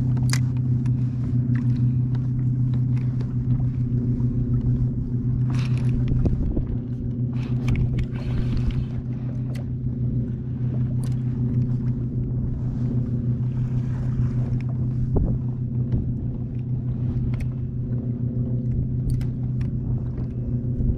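Watersnake electric trolling motor running steadily on the kayak, a constant low hum with a few light knocks and clicks over it.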